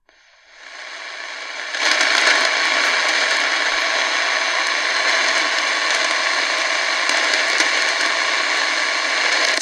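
Shortwave static from the KNSTAR RX-608ACW portable radio's speaker: a loud, even hiss with a few faint steady whistles under it. It swells up over the first two seconds, then holds steady.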